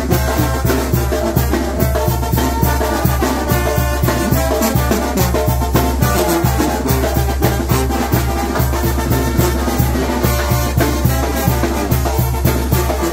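Mexican brass band (banda) playing a tune, with brass and trumpets over a steady drum beat.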